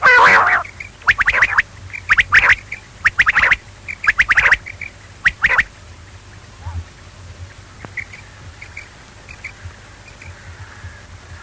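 Quail calling: a loud call at the start, then a series of short, rapid pulsed call phrases about once a second, with fainter chirps in the second half.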